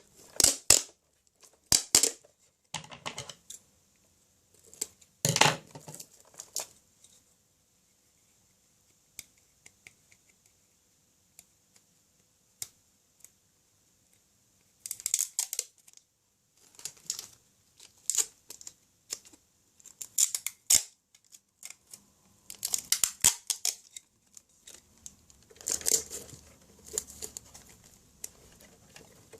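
Sellotape being pulled off the roll and torn in short, irregular rasping bursts as it is wrapped around an RC car's rear drive wheel, with a quiet stretch of several seconds in the middle.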